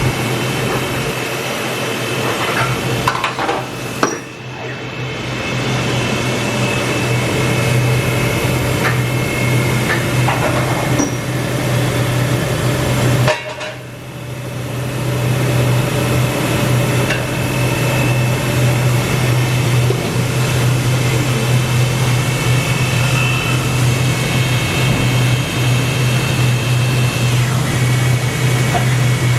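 Steady low hum of running shop machinery, with faint steady high tones above it. Two sharp knocks sound about four seconds and thirteen seconds in, each followed by a brief drop in level.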